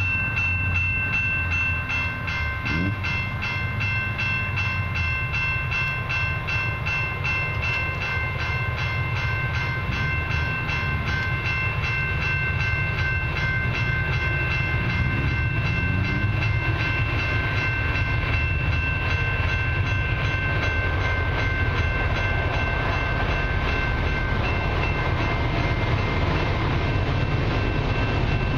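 Level-crossing warning bells ringing in a fast, steady repeat as the crossing signals flash and the gates lower, warning of an approaching train. A continuous low rumble runs underneath.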